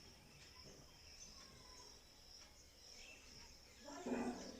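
Faint steady high-pitched insect chirring, as of crickets. About four seconds in, a brief louder pitched sound.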